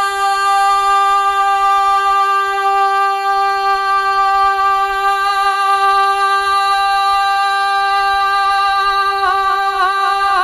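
A male naat singer holding one long unaccompanied note on the last syllable of 'Maula', steady at first and breaking into a wavering ornament near the end.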